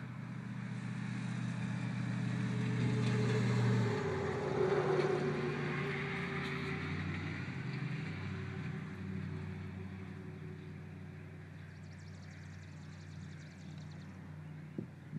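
A motor vehicle driving past, its engine hum and tyre noise building to a peak about four seconds in, dropping slightly in pitch as it goes by, then fading away.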